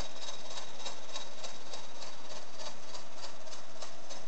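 Meccano model of a Corliss steam engine, built from metal Meccano parts, running, its mechanism clicking evenly about three times a second over a steady whine.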